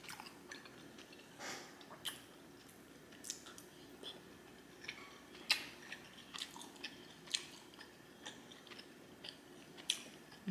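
A person chewing food, quiet and irregular, with scattered wet smacks and clicks of the mouth.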